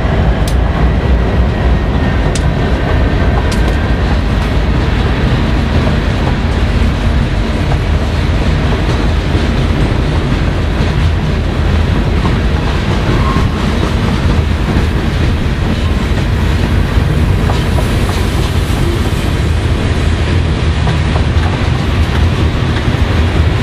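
Freight train cars, covered hoppers and tank cars, rolling past close by with a steady, loud rumble of steel wheels on rail and a clickety-clack over the joints.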